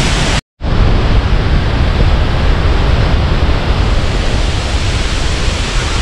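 Salto Utiariti, a waterfall of nearly 90 m on the Papagaio River: a loud, steady rush of falling water, broken by a split-second gap of silence about half a second in.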